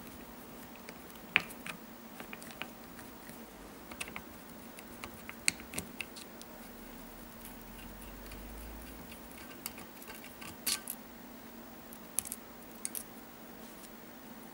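Sparse small metallic clicks and taps as the parts of a Weihrauch spring air rifle are handled while the breech pivot bolt and its washer are taken out. The sharpest clicks come about a second and a half in and about five and a half seconds in, with a short flurry near eleven seconds.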